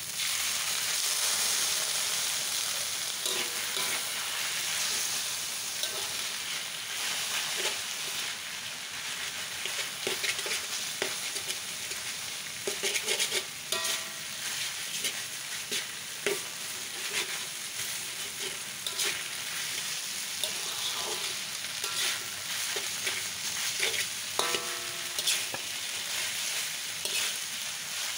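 Mee goreng noodles sizzling in a hot wok just after a splash of water, with a metal spatula repeatedly scraping and knocking against the wok as the noodles are tossed. The sizzle is loudest in the first few seconds.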